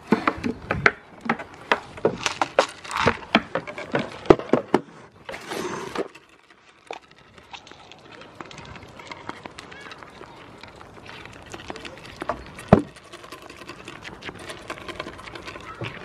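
A goat's hooves clicking and knocking on a wooden board, then the goat nibbling and crunching small food pieces off the board at close range, with one sharp knock about three-quarters through.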